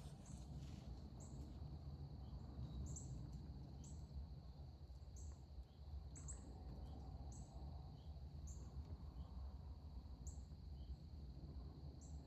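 Faint outdoor ambience: short high chirps repeating about once a second, typical of a small bird, over a steady thin high whine and a low rumble.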